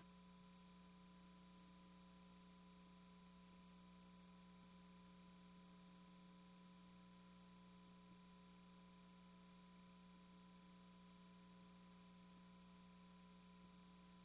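Near silence: a faint, steady electrical hum with light hiss.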